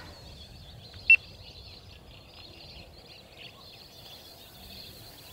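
Quiet outdoor ambience with a faint high hiss, broken about a second in by one short, high, steady-pitched beep.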